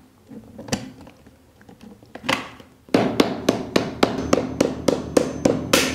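Claw hammer tapping a profile strip down onto the edge of a melamine-faced particleboard shelf panel, seating the strip's small tab in the panel's groove. After a couple of single clicks, a quick, even run of light taps, about four a second, starts about three seconds in.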